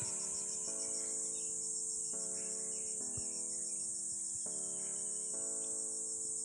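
Insects trilling in a steady, high, fast-pulsing buzz, with soft sustained music chords underneath that change every second or so.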